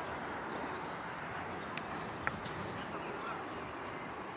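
Steady outdoor background noise around a football pitch, with a short sharp knock a little past two seconds in.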